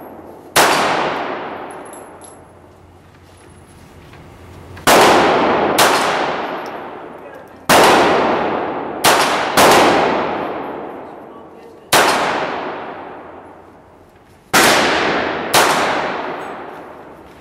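Phoenix Arms HP22 .22 LR pistol fired about nine times at uneven intervals, two of them in quick succession. Each shot is a sharp crack with a long echo in the indoor range.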